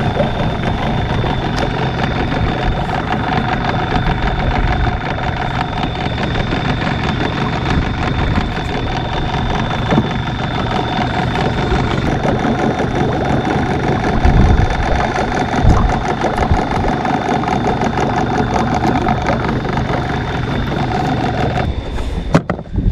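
Mercury 9.9 hp outboard motor idling steadily with an even hum and a thin high whine; it cuts off abruptly shortly before the end.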